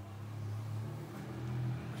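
Honda CRF1100 Africa Twin's 1100 cc parallel-twin engine idling with a steady low hum, growing slightly louder toward the end.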